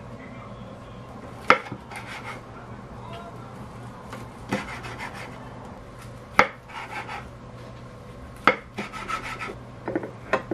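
A knife slicing a kimbap roll on a wooden cutting board. About four sharp knocks of the blade on the board come two to three seconds apart, each followed by a short rasp of the blade through the dried seaweed wrap, with a few lighter clicks near the end.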